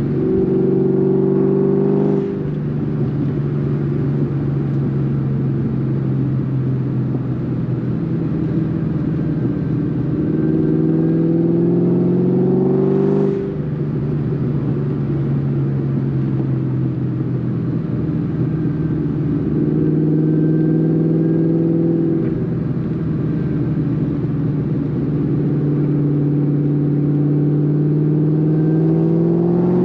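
In-cabin sound of a 2003 Ford Mustang SVT Cobra's supercharged 4.6-litre V8 breathing through a 3-inch Bassani catback exhaust under easy driving. The engine note climbs gently and then drops sharply at each upshift, several times over.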